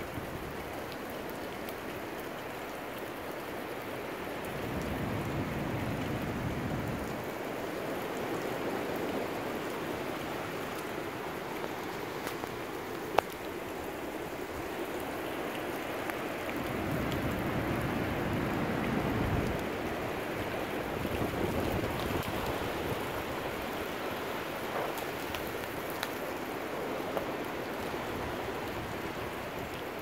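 Storm wind and rain: a steady rush with two heavier gusts that buffet the microphone, one about five seconds in and one about seventeen seconds in. There is a single sharp click about halfway through.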